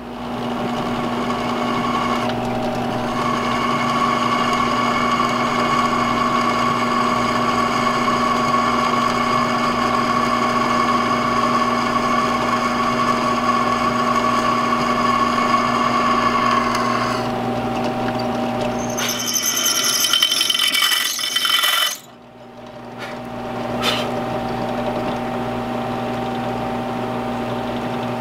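Bench drill press running, its bit drilling through a 52100 high-carbon steel knife blank: a steady motor hum with a high whine from the cut. About two-thirds through the cutting turns rougher and hissier, then after a brief dip the press runs on steadily.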